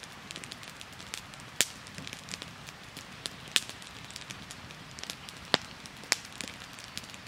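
Wood fire crackling, with irregular sharp pops over a steady hiss; a few pops are much louder than the rest.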